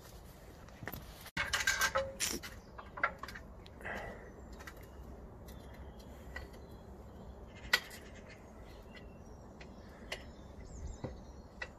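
Handling noises from a streetlight lantern head being worked on from a stepladder: a burst of clattering about a second in, then scattered sharp clicks and knocks, the sharpest a little past halfway.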